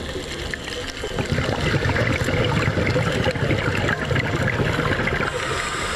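Underwater bubbling and gurgling from scuba divers' exhaled air, with irregular crackles over a low rumble.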